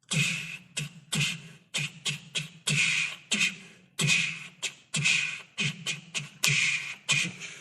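Vocal beatboxing: one person making a drum beat with the mouth, low kick-like thumps alternating with hissing snare and hi-hat sounds in a steady rhythm, about two to three strokes a second, with a few longer hisses.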